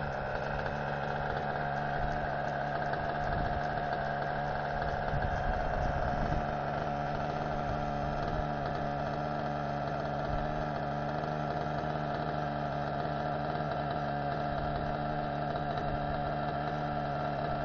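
The two-stroke nitro glow engine of a T-Rex 600 nitro RC helicopter running at a steady, unchanging speed on the ground on its first run, with the main rotor turning. It makes a steady whine and hum that holds its pitch.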